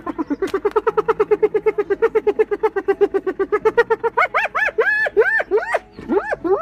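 Spotted hyena giggling, its 'laugh': a fast run of short, even yelping notes, about nine a second, for around four seconds, then slower, higher whooping notes that each rise and fall in pitch.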